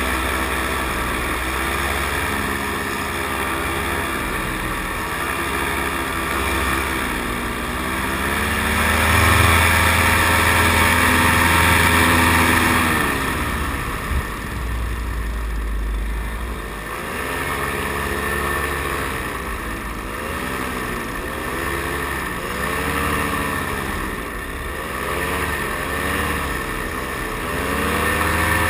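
Paramotor engine and propeller running close by. It runs steadily at first, then climbs higher and louder for a few seconds about a third of the way in. In the second half it rises and falls again and again as the throttle is opened and closed.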